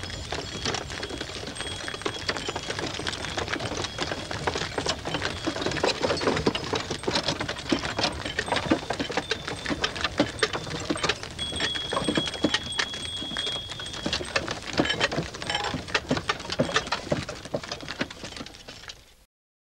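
Bullock carts rolling, with a dense, irregular clatter and knocking of wooden wheels, axles and loads. A thin high tone holds for about two seconds midway, and the sound cuts off abruptly near the end.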